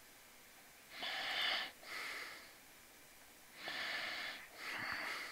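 A person breathing close to the microphone: two slow in-and-out breaths, each a soft pair of airy hisses, about three seconds apart.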